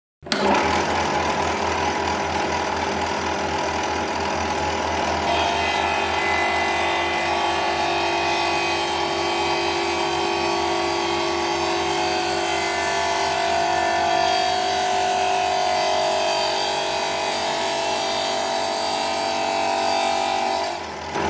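Electric sander running steadily while sanding a starfish, a continuous motor hum with grinding noise. It starts suddenly and dips briefly near the end.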